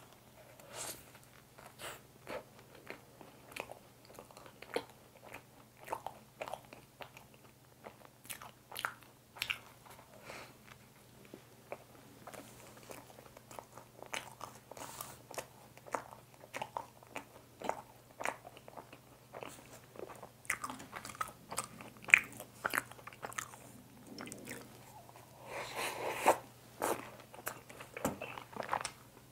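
Close-miked biting and chewing of a mocha bun with a crisp, cookie-like topping and a whipped-cream filling: irregular crunches, sticky mouth clicks and smacks, with a denser, louder stretch near the end. A faint steady low hum runs underneath.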